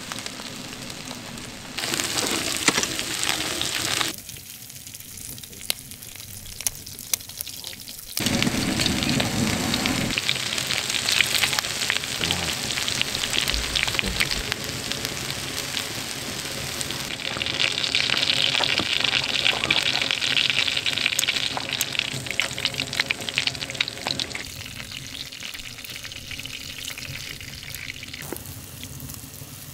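Beef intestines (sogopchang) and sausage sizzling on a cast-iron griddle over a gas burner, a steady hiss full of small crackling pops. The sizzle is quieter for a few seconds early on, swells about eight seconds in, and drops back near the end.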